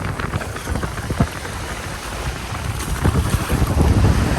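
Wind buffeting the microphone over sea waves, a low uneven rumble, with one sharp knock about a second in.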